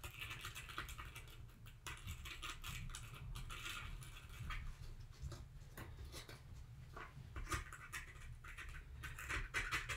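A wooden toothpick scraping and poking around the center hole of a Ritz cracker to widen it: faint, irregular scratchy clicks.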